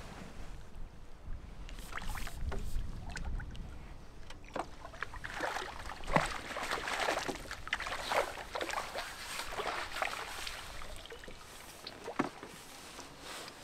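A small carp thrashing and splashing at the water's surface as it is drawn into a landing net, with irregular bursts of splashing that are busiest mid-way. Near the end there is one sharp splash as the net is lifted out of the water.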